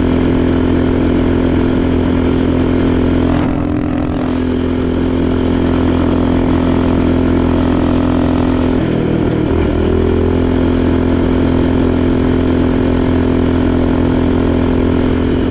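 Predator 212 single-cylinder four-stroke engine on a mini bike, running steadily with a fitted stock camshaft. It dips briefly about three and a half seconds in and wavers in pitch about nine seconds in. It runs well, a sign the camshaft is timed right.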